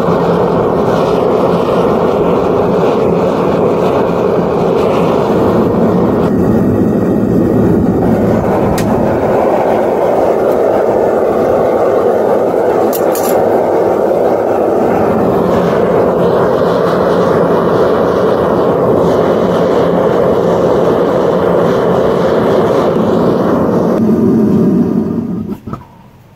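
Propane gas burner of a Devil Forge furnace running at full blast, a steady loud rushing noise, while it heats a crucible of copper wire to melting. The sound cuts off near the end.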